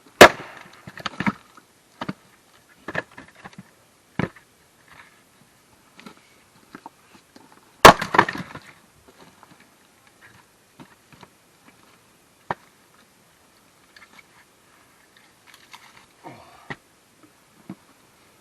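A splitting maul strikes firewood blocks: two heavy blows about 8 seconds apart, each followed by the crack and splintering of the wood giving way, with lighter knocks of wood in between. The blocks are already well cracked, so they split readily under the maul.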